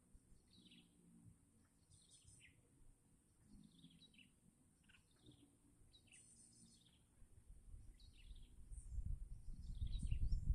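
A bird calling over and over, each call a quick falling chirp, about one a second. Near the end a low rumbling noise builds up and grows louder.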